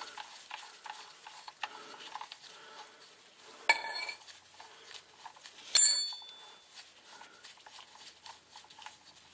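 Oil drain plug being unscrewed by hand from the oil pan: faint rubbing and ticking of the gloved hand and threads, with two sharp metallic clinks that ring briefly, about four and six seconds in.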